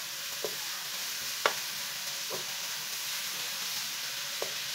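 Grated carrots sizzling steadily in hot oil in a metal pot while a wooden spatula stirs them, knocking against the pot four times, loudest about a second and a half in.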